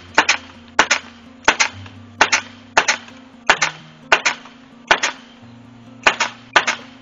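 Hammer driving roofing nails through greenhouse poly into the frame: a run of sharp blows, about one and a half a second, each a quick double clack.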